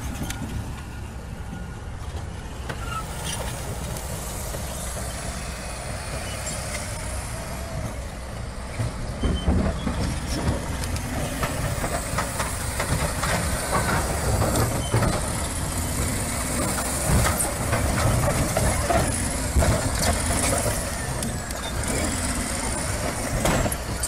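Caterpillar crawler bulldozer's diesel engine running under load as its blade shoves a huge boulder across dirt. It grows louder from about nine seconds in, with irregular crunching and grinding of rock and soil.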